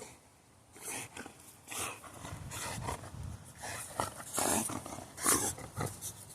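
Boxer dog making short, irregular noisy breaths and low grunts as it plays with and mouths a toy.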